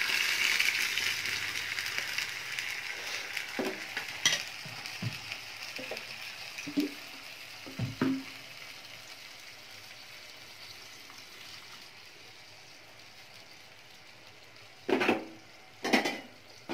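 Sizzling from a hot pan of fried onions as tomato juice is poured in, the sizzle fading away over about ten seconds. A spoon knocks against the steel pouring vessel a few times in the first eight seconds, and two loud clanks of pots come near the end.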